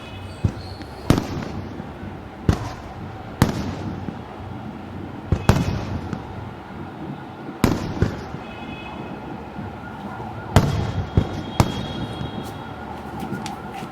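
Aerial fireworks shells bursting, with sharp booms every one to three seconds, each trailing off in a rolling echo, over steady crackling between the bursts.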